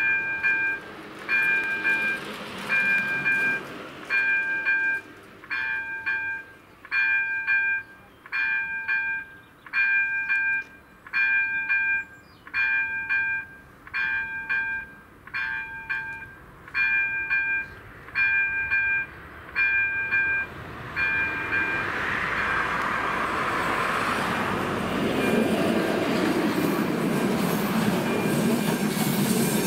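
Level-crossing electronic warning bell (ZV-02) sounding intermittently: short beeps of several high tones together, about once a second, warning of an approaching train. About 22 seconds in, the noise of a passenger train rises and takes over as it reaches and runs through the crossing.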